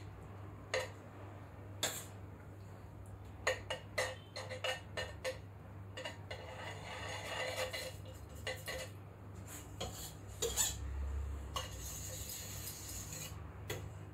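Metal palette knife clinking and scraping against a stainless steel bowl and a metal cake turntable while whipped-cream frosting is smoothed and wiped off the blade. Sharp clinks come one at a time and in quick runs, with two longer stretches of scraping.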